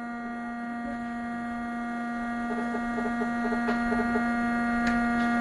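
Steady electrical hum, a low buzzing tone with overtones, slowly growing louder. A few faint light ticks come in the middle and near the end.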